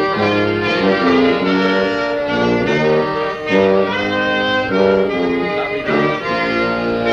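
Clarinet, accordion and bass tuba playing an instrumental tune together in held notes, the tuba carrying a bass line that changes note about every half second to second; an old cassette-tape recording.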